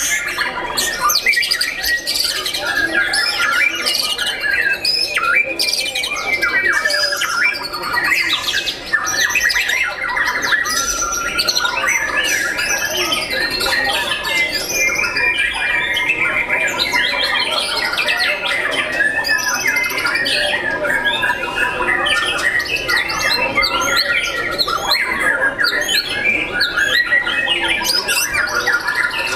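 White-rumped shama (murai batu) singing in a dense, unbroken chorus of songbirds: fast, overlapping whistles, trills and notes gliding up and down.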